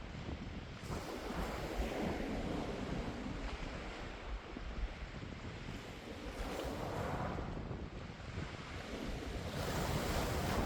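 Sea waves breaking on a pebble beach and washing over the stones, swelling in surges every few seconds, with a low rumble of wind on the microphone.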